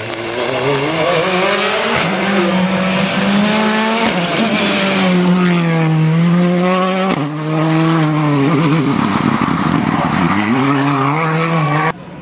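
Rally cars driven flat out on a tarmac stage, engines revving hard, pitch climbing and dropping through quick gear changes as each car brakes and accelerates out of the corner. The sound cuts abruptly to another car about seven seconds in, and drops sharply just before the end.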